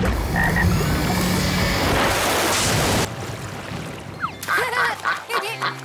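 Cartoon sound effect of water rushing in to fill a pond: a loud, steady wash over background music that cuts off abruptly about three seconds in. Quieter music follows, with a few short high chirps near the end.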